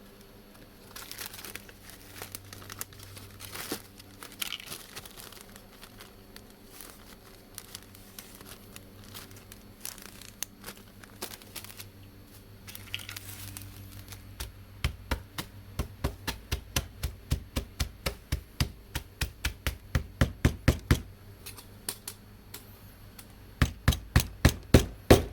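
Plastic zip-top bag crinkling as coolant supplement pellets are handled in it. About halfway in, a fast run of sharp knocks starts, about three or four a second, as the pellets in the bag are pounded to crush them. The knocks stop briefly and start again near the end.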